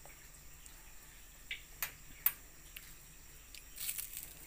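A few faint, sharp clicks, three of them close together in the middle, then plastic wrap crinkling briefly near the end as a plastic-wrapped ball of bread and ice cream is handled.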